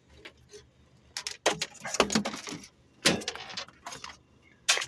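Pieces of scrap metal clattering and clinking as they are tossed in, in several rattling bursts, the loudest about two and three seconds in, with a last sharp clank near the end.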